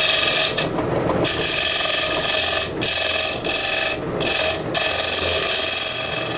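A lathe tool cutting into a wooden pulley blank spinning on a wood lathe: a loud scraping hiss that breaks off briefly several times as the tool is eased off the work, over the steady low hum of the lathe.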